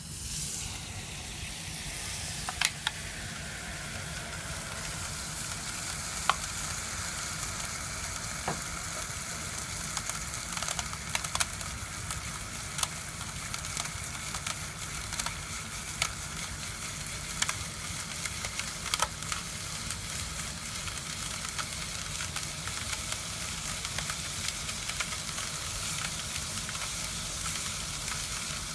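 Liquid nitrogen boiling off in a glass dish: a steady sizzling hiss that starts suddenly, with a tone in it sliding down over the first few seconds, and scattered sharp ticks and cracks.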